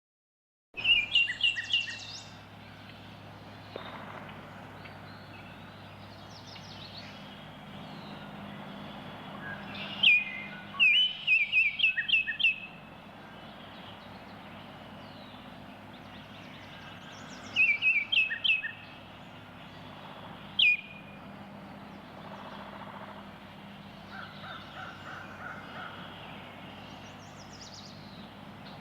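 Baltimore oriole singing: short phrases of clear whistled notes, a few seconds apart, over steady low background noise.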